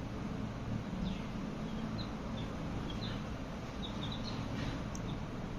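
Baby chicks peeping: many short, high cheeps scattered irregularly, some sliding downward, over a steady low hum.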